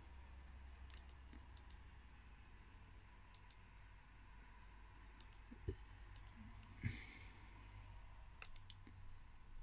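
Faint clicks in quick pairs, about six times, from a laptop being operated, over a low steady hum. A soft bump and a brief rustle come about seven seconds in.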